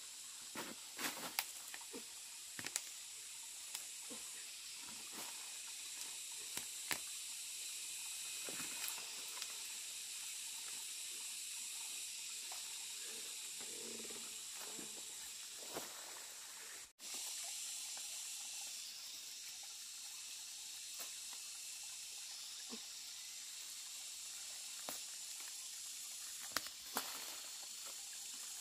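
Plant stalks snapping and rustling as clumps are pulled and broken from the soil by hand, a scatter of sharp snaps and crackles over a steady high hiss.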